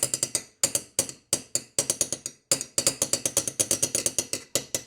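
A rapid, uneven run of sharp clicks and clacks, several a second, broken by a few short pauses.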